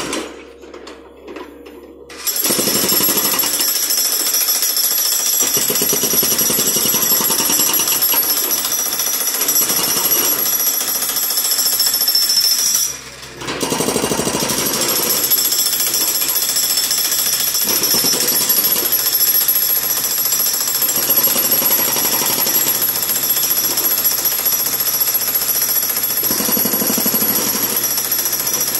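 Hydraulic breaker hammer on a John Deere 50D compact excavator pounding concrete: a rapid, continuous hammering that starts about two seconds in and breaks off briefly near the middle before going on.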